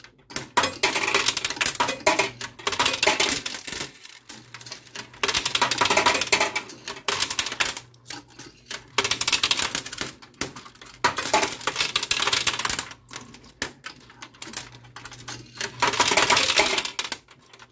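Quarters clattering and clinking inside a coin pusher machine, in several stretches of rapid metallic clinks a few seconds apart, over a low steady hum.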